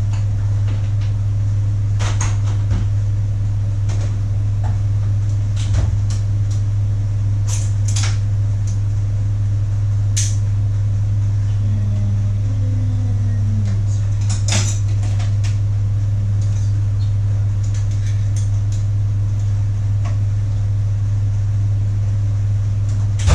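Steady low hum with scattered metal clicks and clatter, tools being handled and rummaged through while searching for a pair of locking pliers.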